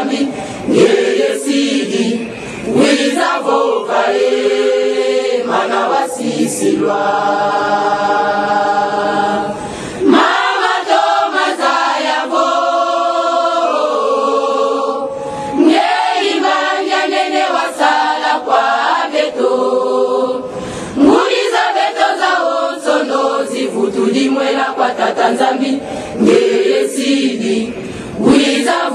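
Choir of many voices singing without instruments, in long phrases with held notes and short breaks between them.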